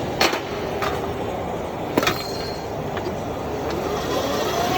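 Electric power rotary machine running, its rollers forming a 3/8-inch single bead in sheet metal. It runs steadily with a few sharp metallic clicks, and a rising whine near the end.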